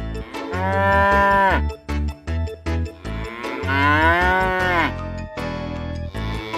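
A cow mooing: two long moos, each falling in pitch at the end, with a third beginning near the end, over background music with a steady beat.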